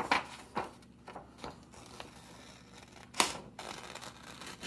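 Small scissors cutting through a sheet of paper along a traced circle: a handful of separate snips with short gaps between them, the loudest about three seconds in.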